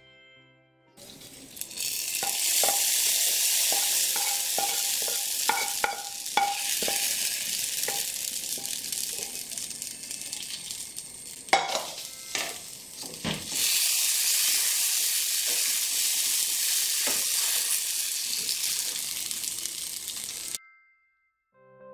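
Hot fried coconut and coconut-oil tempering sizzling as it is tipped into a pot of jackfruit curry and stirred in. A spoon and spatula clink and knock against the enamel pot in a run of strokes early on and again about halfway. The sizzle cuts off suddenly near the end.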